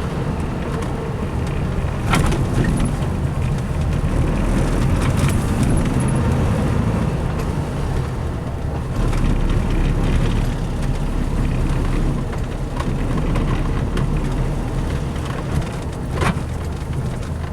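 Diesel engine of a truck-mounted crane running steadily, with a few sharp metal knocks.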